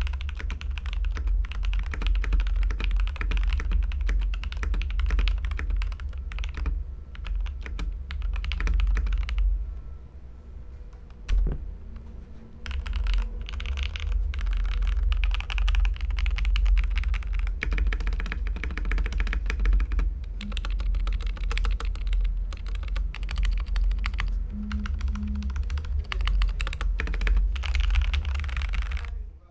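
Fast, continuous typing on a Feker IK75 Pro V3 mechanical keyboard with JWK Lagoon tactile switches and factory-lubed stock stabilisers, the keystrokes clacking in quick runs with a brief pause about ten seconds in.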